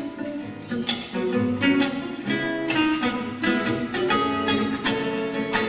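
Solo classical guitar played fingerstyle: a quick flow of plucked notes and chords, with sharp chord attacks about once a second.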